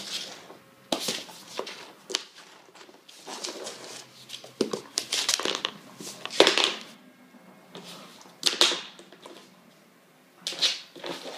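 Drentsche patrijshond puppy batting and pawing a wooden hair brush across a laminate floor: irregular clattering and scraping of the brush on the boards, in short bursts with brief pauses between.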